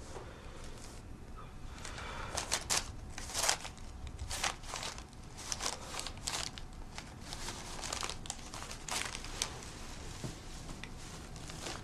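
Irregular crinkling and rustling, in many short uneven bursts, of something being handled and rummaged through by hand.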